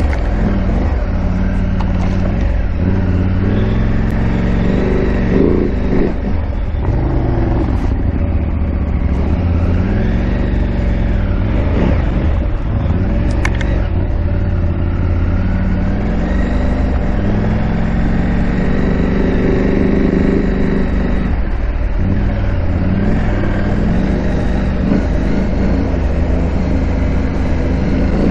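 KTM 890 Adventure R's parallel-twin engine running under way off-road, its revs rising and falling repeatedly with the throttle.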